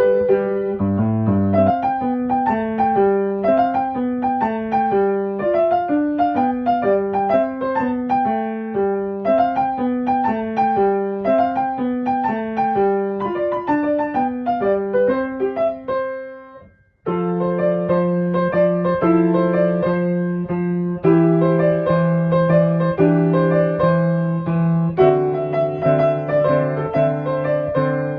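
Background piano music. Quick moving notes fade out about sixteen seconds in, and the piano starts again straight away with slower held chords.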